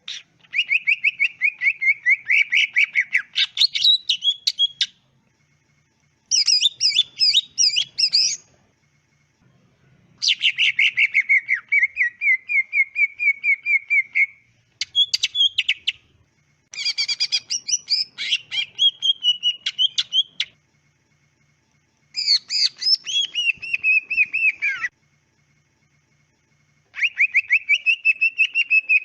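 Greater green leafbird (cucak ijo) singing in full, vigorous 'gacor' song. It sings about six phrases of rapid repeated chirping notes, each two to four seconds long, with short pauses between them.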